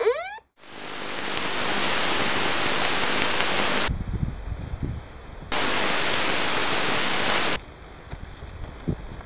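Two long, steady hisses: the first swells in over about a second and lasts about three seconds, the second starts and stops abruptly about a second and a half later and lasts about two seconds.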